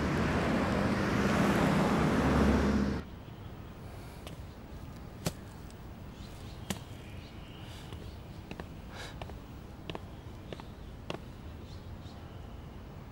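City road traffic, a dense rumble and hiss, for about three seconds. It then cuts off sharply to a quiet outdoor ambience with scattered light footsteps and small clicks.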